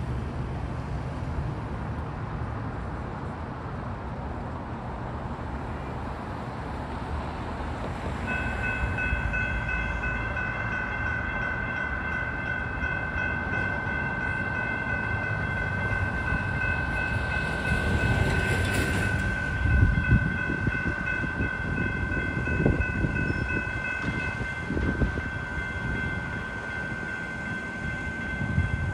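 Railroad crossing warning bell starting about eight seconds in and ringing steadily as the crossing signals activate, over a constant rumble of street traffic. A louder rumble and clatter comes about two-thirds of the way through.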